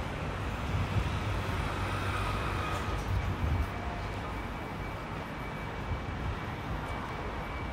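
Urban street ambience: a steady low rumble of distant city traffic with a faint steady high-pitched tone running through it.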